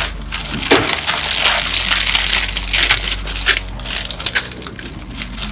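Clear plastic wrapping crinkling as hands pull it open, then small plastic bags of toy building bricks rustling as they are handled, with many sharp clicks.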